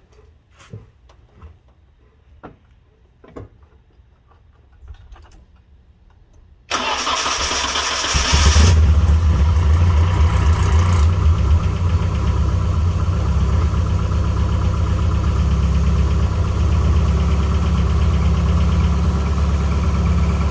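A few faint clicks, then a Nissan 240SX's engine is cranked by the starter about six and a half seconds in, catches a second and a half later and settles into a loud, steady idle. The engine is running with no exhaust fitted and has a noise which the owner hopes is a seized rocker arm.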